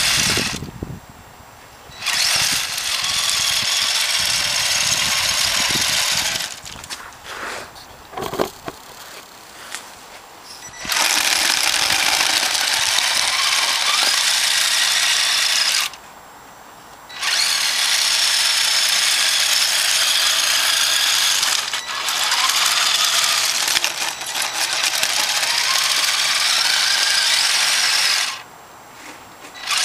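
A radio-controlled plow truck's motor and drivetrain whining at a high pitch in long runs of several seconds, cutting off abruptly between runs as the throttle is let off. The pitch rises and falls slightly with speed.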